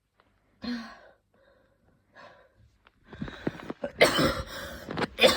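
A woman's intense coughing fit. After a short burst about half a second in and a quieter spell, a run of loud, rapid coughs builds from about three seconds in and carries on to the end.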